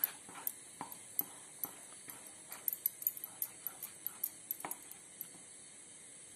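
A spatula tapping against a metal pan while stirring thick rice kheer: light, quick knocks about two or three a second that stop about five seconds in.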